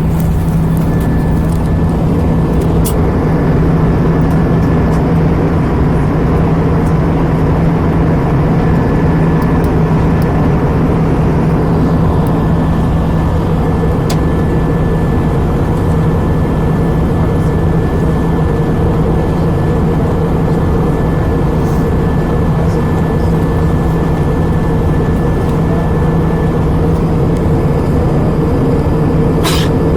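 Steady cabin noise of an Airbus A320 airliner in flight: a constant engine and airflow roar with a low hum and a faint high whine.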